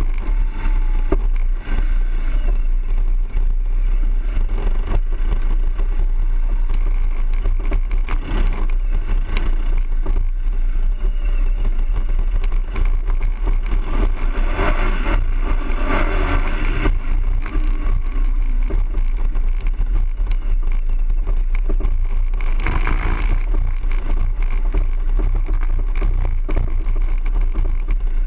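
BMW R 1200 GS boxer-twin motorcycle engine running while riding a dirt track, under a heavy, steady rumble of wind and ground noise on the bike-mounted camera. It gets louder for a few seconds around the middle and again briefly a few seconds later.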